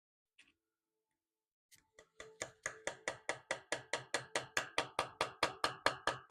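Rapid, even light hammer taps on iron, about five a second, each ringing briefly, starting about two seconds in and growing louder.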